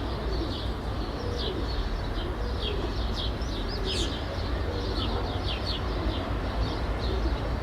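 Residential city ambience: small birds chirping repeatedly and high-pitched, over a steady low rumble of distant traffic.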